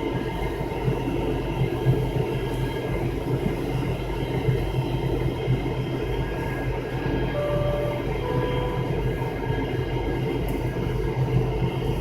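Cabin noise of an MD-83 heard from a rear seat near the tail-mounted Pratt & Whitney JT8D turbofans: a steady drone and rumble with several engine tones held over it.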